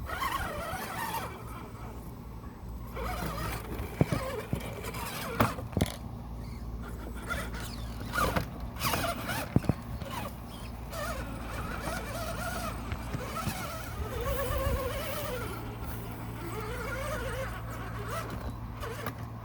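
Redcat Gen 8 RC crawler's electric motor and drivetrain, fitted with Treal overdrive front portal gears, whining as it crawls, the pitch rising and falling with the throttle. Several sharp knocks in the first half, like the truck's tires and chassis striking rocks.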